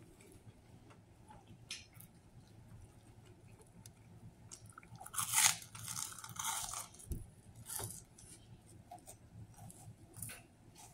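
A person biting into a sub sandwich and chewing, with the bread crust crunching. The crunching is loudest about five to seven seconds in, with scattered smaller crunches and mouth clicks around it.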